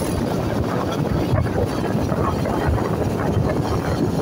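Steady engine and road noise from a vehicle travelling along a road, heard from on board, with wind rumbling on the microphone.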